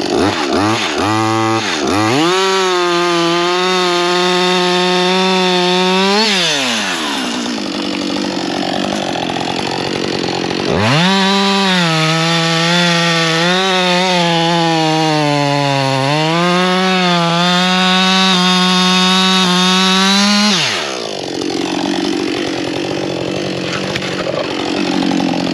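Husqvarna 562 XP two-stroke chainsaw blipped from idle, then held at full throttle twice for several seconds each, dropping back to idle in between. During the longer run the pitch sags and recovers as the chain bites into wood.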